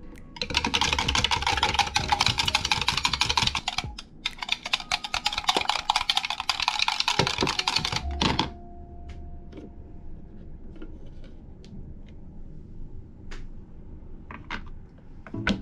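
Small wire whisk beating a raw egg in a glass measuring cup: a fast, dense clatter of the wires against the glass in two runs of about four seconds, with a short pause between. It stops about eight seconds in, and a few light clicks and knocks follow.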